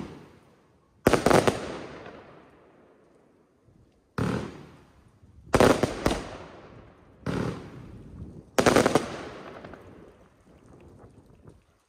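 Compound of two 25 mm fan-cake fireworks batteries firing white strobe stars: five sharp launch bangs at uneven intervals, some in quick doubles or triples, each dying away over about a second.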